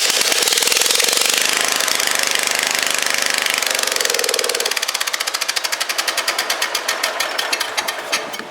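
Wheel Horse tractor's single-cylinder Kohler Magnum 14 engine running loud through a straight-pipe exhaust, just fired up on a new fuel pump. From about five seconds in, it slows so that the separate firing strokes can be heard, coming further apart.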